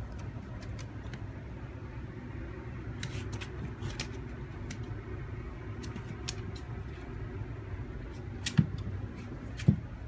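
Light taps and scratchy clicks of a kitten playing against a wooden cabinet on a wooden floor, with two sharper knocks near the end, over a steady low hum.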